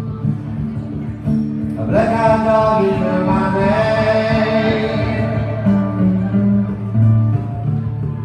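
Live acoustic music: guitars picking steady low notes with singing, and from about two seconds in a long sustained high melody note held over them.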